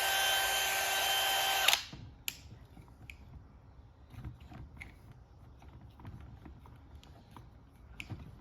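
DeWalt DCD999 cordless brushless hammer drill running at a steady full speed, then stopping sharply about two seconds in. Faint clicks and knocks from the drill being handled follow.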